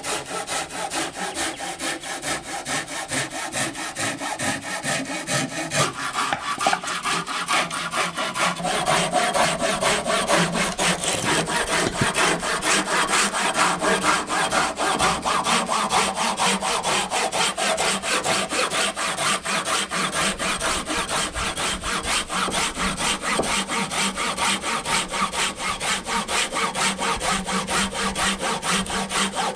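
A hand saw cutting through wood in a steady, rapid back-and-forth rhythm of strokes.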